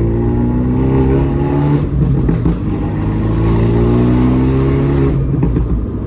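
Modified Abarth 124 Spider's turbocharged 1.4-litre four-cylinder, breathing through a 200-cell sports cat and a Monza exhaust with its valves wired open, pulling under acceleration. The engine note climbs, dips about two seconds in and climbs again, then drops off about five seconds in.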